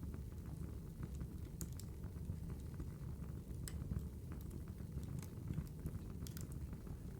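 Steady low-pitched ambient noise with scattered, irregular sharp crackles and pops, about a dozen of them spread unevenly through the stretch.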